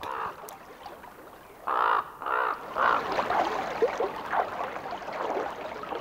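A corvid cawing: three loud, harsh caws in quick succession about two seconds in, followed by softer, scattered calls.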